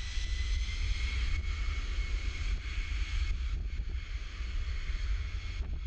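Jet airliner engines running, with a thin whine that rises slightly over the first few seconds, under heavy wind buffeting on the microphone.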